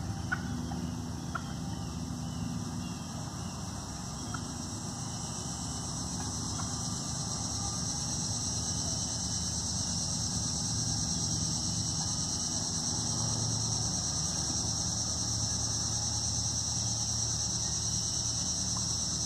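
Evening insect chorus: a steady high-pitched drone that grows louder from about six seconds in, over a low rumble. A few faint, sharp wild turkey clucks come in the first few seconds.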